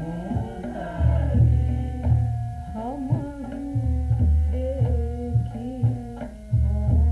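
Devotional bhajan music: tabla-style hand drums beat deep strokes, some with bending pitch, under sustained melodic instrument tones.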